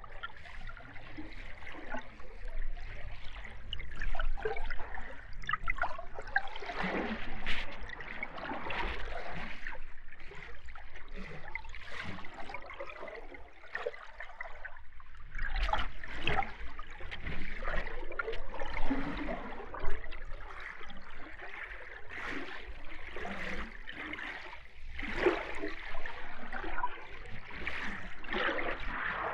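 Underwater ambience: bubbling and gurgling water, with a low rumble beneath, swelling and fading unevenly.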